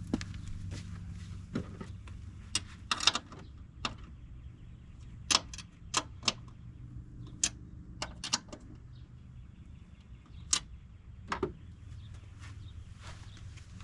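Scattered sharp clinks and knocks of hand tools and parts being handled, about a dozen over the span, with a small cluster about three seconds in, over a steady low hum.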